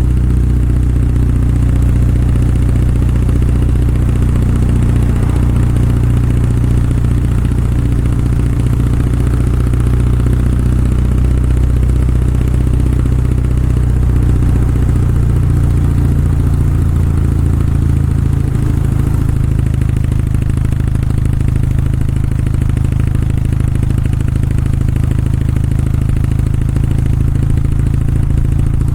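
Kawasaki W650's air-cooled parallel-twin engine and exhaust running steadily under way. The engine note shifts about two-thirds of the way through, then holds steady again.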